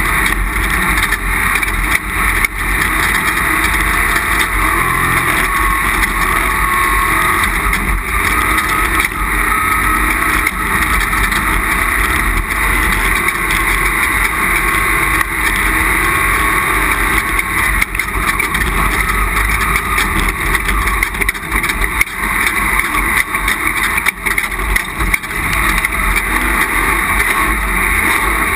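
Off-road race vehicle running at a sustained pace in a desert race. Engine and rushing noise are loud and steady throughout, broken by occasional short knocks and rattles.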